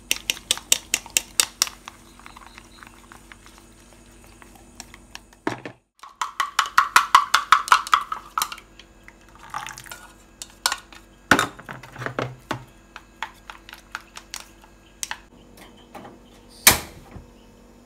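Chopsticks beating eggs in a ceramic bowl: bouts of rapid, even clicking against the bowl's sides, with scattered taps in between. Near the end, one sharp click as a gas stove knob is turned to light the burner.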